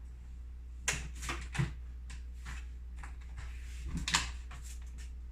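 Brief rustles and clicks of food items or their packaging being handled, a few about a second in and again about four seconds in, over a low steady hum.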